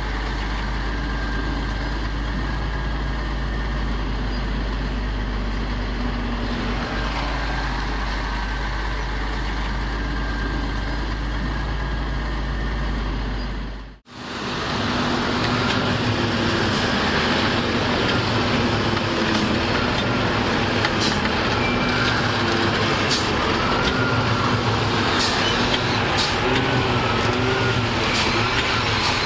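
Heavy diesel earth-moving machinery running steadily. There is a sudden cut about halfway through, after which the engine note wavers up and down, with a few short sharp clicks.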